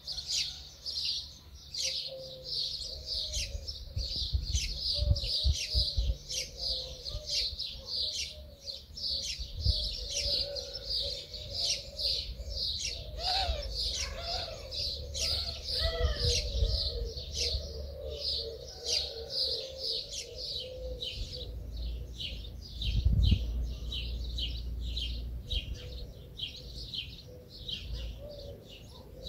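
Birds chirping continuously with short high chirps, two or three a second, and a lower wavering call in the middle stretch. A few low thumps come through, the loudest about 23 seconds in.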